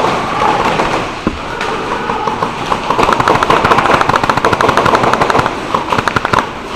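Airsoft BB guns firing in rapid automatic bursts: a fast string of sharp cracks, about a dozen a second, that gets going about three seconds in and runs until shortly before the end.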